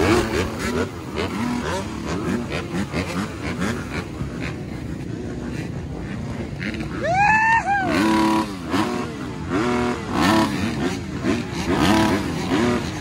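Several motocross motorcycles revving, their engine notes rising and falling over one another. About seven seconds in one revs high and loud, then engines climb in pitch in repeated steps as they accelerate through the gears.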